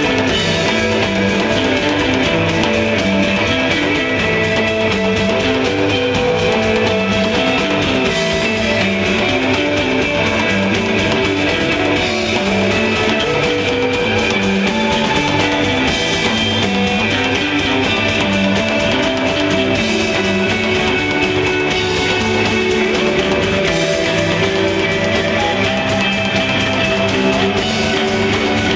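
Live instrumental desert rock: electric guitar plays a repeating melodic figure over bass and drum kit, with a cymbal crash about every four seconds.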